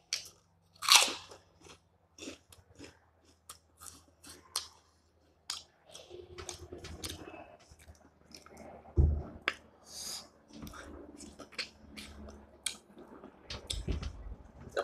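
Close-up eating sounds: crunchy bites, chewing and wet lip smacks, as sharp clicks. From about halfway, fingers wiping leftovers along a steel tray add a steady rubbing noise and a couple of dull thuds.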